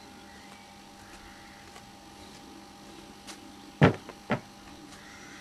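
Two sharp knocks about half a second apart, the first louder, over a steady electrical hum.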